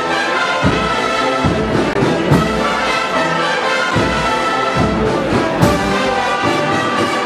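Brass band playing a march, with a steady bass drum beat under sustained brass chords.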